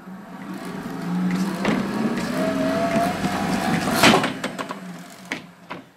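Stairmaster 4000 PT's step-driven chain, gearbox and Prestolite 12 V alternator spinning up as a step is pushed down: a whirr that builds over the first couple of seconds with a slightly rising tone, a sharp clack about four seconds in, then winding down and fading out.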